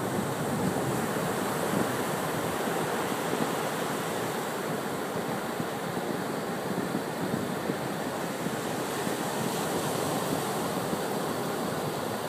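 Ocean surf on a sandy beach: small waves breaking and washing up over wet sand in a steady rush.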